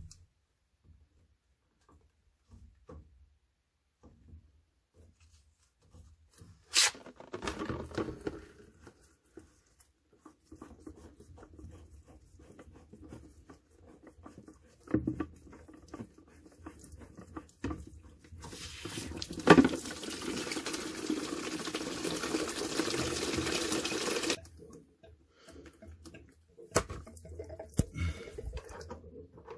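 Water draining from an opened plug on the underside of a Navien tankless water heater into a plastic bucket: scattered drips and handling knocks, then a steady rush of water for about six seconds past the middle, then dripping again. A few sharp knocks stand out, the loudest inside the rush.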